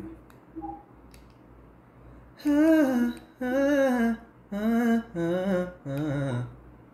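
A man humming a short wordless tune: five held notes with a wavering pitch, starting about two and a half seconds in.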